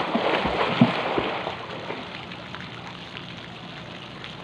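Swimming-pool water splashing hard as a swimmer plunges and thrashes in it, then dying down to light lapping about two seconds in.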